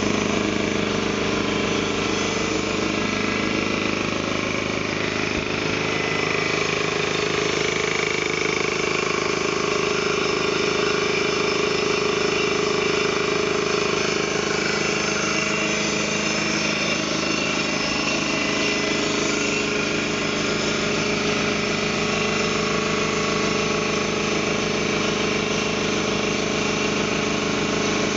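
Ingersoll Rand T30 7.5 hp upright piston air compressor running steadily under power, its pump working to fill the 80-gallon tank.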